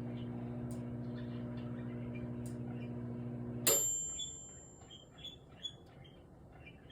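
Microwave oven running with a steady hum, then shutting off about three and a half seconds in with a click and a ringing ding that fades away as the heating cycle ends.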